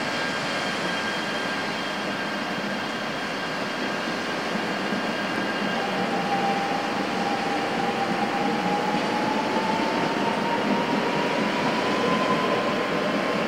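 Yamagata Shinkansen train running with a steady rumble and hiss. About six seconds in, an electric motor whine starts and rises slowly in pitch as the train picks up speed.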